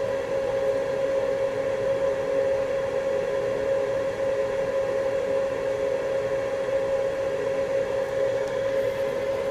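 Steady electric fan or blower whir with a constant hum, unchanging throughout.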